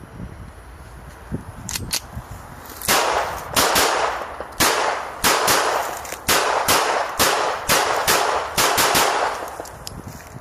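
A Browning-pattern pistol clone fired about a dozen times in quick succession, each shot ringing out with an echo. A couple of light clicks come just before the shooting.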